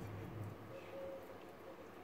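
Faint, wet handling sounds of a raw chicken being worked by hand in a glass bowl of marinade, over quiet room tone. A low hum fades out in the first half second.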